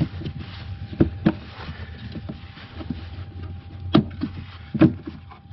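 A hand groping behind a plastic engine-bay fuse box, rubbing against and knocking on the plastic covers: a pair of sharp knocks about a second in and two more about four seconds in and near the end, over a steady low hum.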